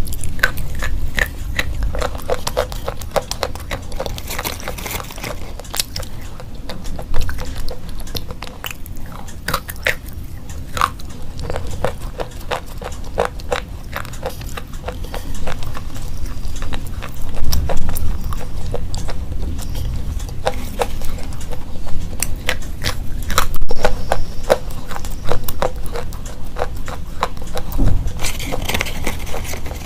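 Slate pencils being bitten and chewed: an uneven, continuous run of crisp crunches and clicks.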